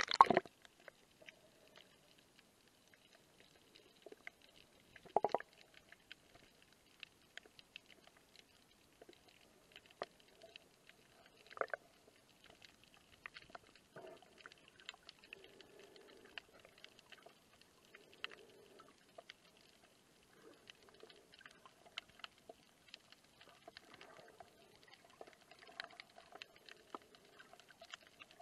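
Underwater sound heard through an action camera's waterproof housing: a loud splash as the camera goes under, then faint scattered clicks and ticks with a few louder knocks, about five and twelve seconds in.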